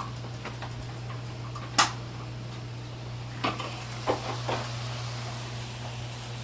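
Meatballs with peppers and onions sizzling in a frying pan, with a few sharp clinks and knocks of a utensil against the pan, the loudest about two seconds in.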